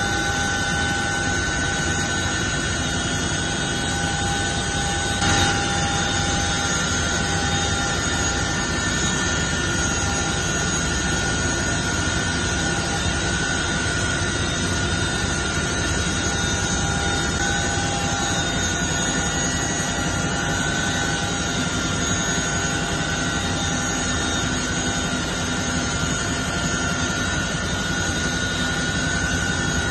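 Helicopter turbine engines running steadily at close range: a loud, even rushing noise with a high turbine whine held on several steady tones. A brief bump sounds about five seconds in.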